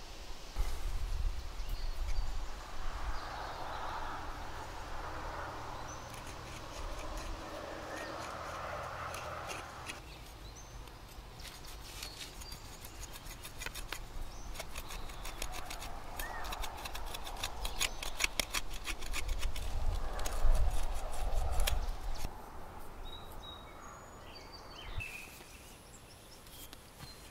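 A knife blade shaving and whittling wood: a long run of short scraping cuts, coming thickest and loudest in the second half.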